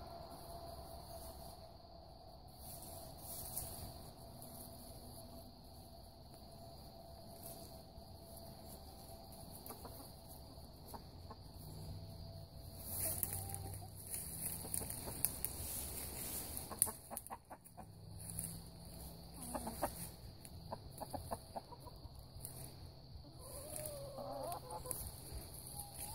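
Backyard chickens clucking quietly as they forage, with a clearer clucking call near the end. Crickets chirp steadily underneath.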